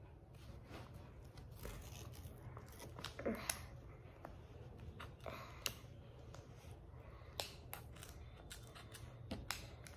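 Scissors snipping at a small plastic package, with soft crinkling and rustling of the packaging between scattered short clicks.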